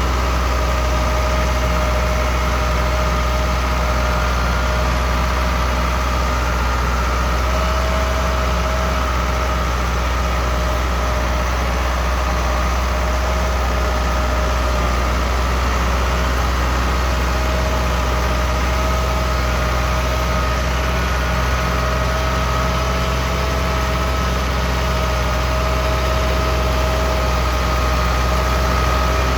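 Ford 6610 tractor's diesel engine running steadily, with a steady high whine over the low engine drone.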